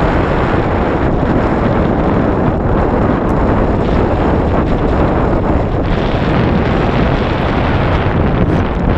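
Strong wind buffeting the microphone: a loud, steady rumble and rush.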